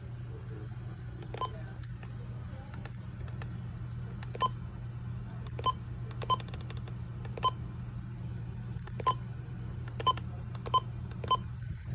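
Short electronic beeps from a weather alert radio, about nine of them at irregular intervals, over a steady low hum.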